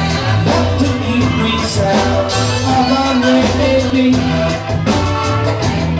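Live band music, a drum kit keeping a steady beat over a bass line.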